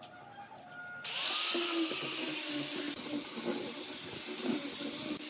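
Angle grinder fitted with a sanding disc, switched on about a second in and spinning up with a rising whine, then sanding the end grain of wooden blocks with a loud, steady hiss.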